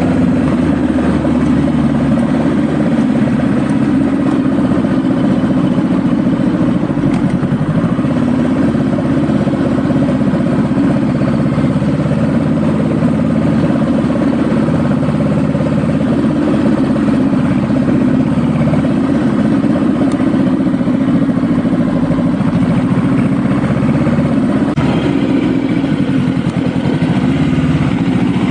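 Honda Rebel cruiser motorcycle's engine running steadily under way, its note shifting a little in pitch as the revs change.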